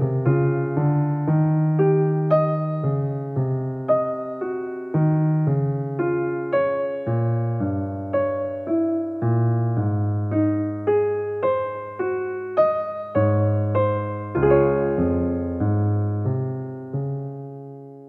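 Background piano music: a slow, gentle melody of single notes over soft chords. It ends on a last chord that dies away near the end.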